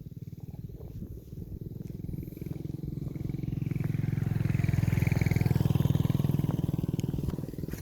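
A motorcycle engine passing by, its low pulsing growl swelling to a peak about five or six seconds in and then fading away.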